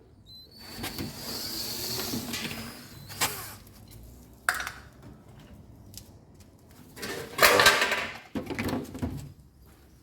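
Handling noises while working on a washing machine: irregular bursts of scraping and rustling with a few sharp knocks, the loudest burst about seven and a half seconds in.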